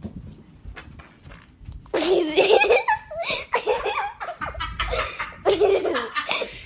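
Loud, hearty laughter that breaks out about two seconds in, after a quiet start with a few faint clicks.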